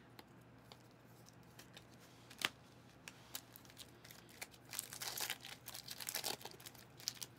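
A single sharp tap about two and a half seconds in, then a foil trading-card pack crinkling and tearing open for a few seconds.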